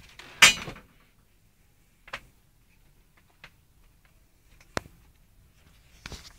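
Handling noise from a handheld camera: a brief rustle about half a second in, then a few scattered sharp clicks as it is moved.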